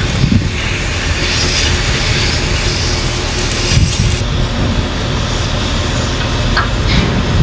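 Heavy diesel machinery running steadily, with a couple of sharp metallic knocks near the end.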